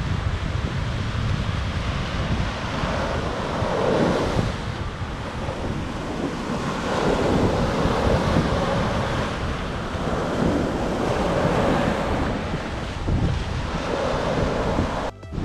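Ocean surf breaking and washing up the beach, swelling louder every few seconds as each wave runs in, with wind rumbling on the microphone.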